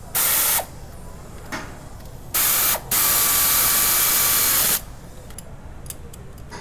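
Compressed-air tool run in three bursts: a short burst, a second short one, then a longer run of about two seconds, each a steady hiss that starts and stops sharply.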